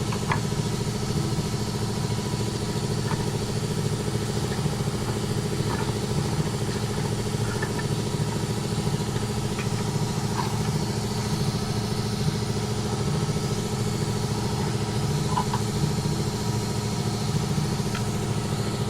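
Air compressor running steadily as it refills its tank, with a few faint clicks and taps scattered through.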